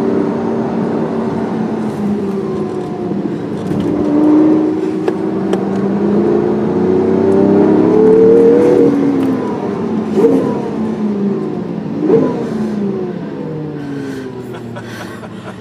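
Lamborghini engine heard from inside the cabin, revs climbing under hard acceleration to a peak near the middle, then falling. Two short, sharp rev blips follow as the car slows, and the engine note sinks and quietens toward the end.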